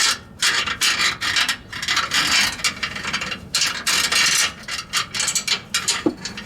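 A long magnet pickup tool scraping and rattling against the inside of a steel truck frame rail, in irregular rough strokes, as it is worked around to catch a loose bolt.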